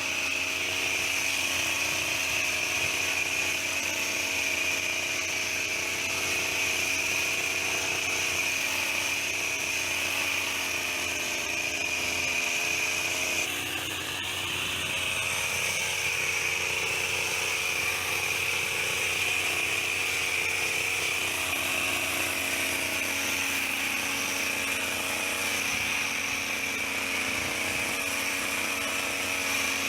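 Petrol hedge trimmer's small engine running at high speed with a steady high whine; it dips briefly about halfway through, then picks back up.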